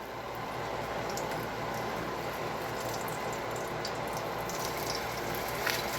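Pancakes frying in hot vegetable oil in a pan: a steady sizzle with a few light crackles.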